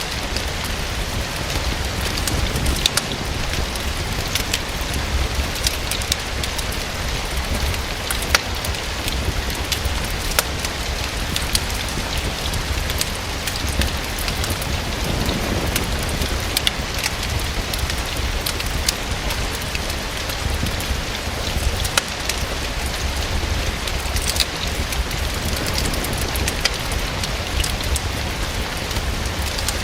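Steady rain falling, with a wood fire crackling in scattered sharp snaps.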